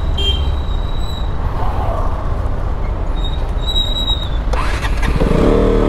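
KTM RC motorcycle's single-cylinder engine idling amid city road traffic, with a steady low rumble. Near the end the noise swells with a rising, wavering engine note as the bike pulls away.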